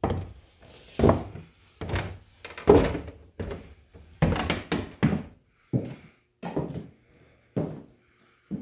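Footsteps on bare wooden floorboards: a steady walking pace of short, heavy thunks, a little under two steps a second, spacing out slightly near the end.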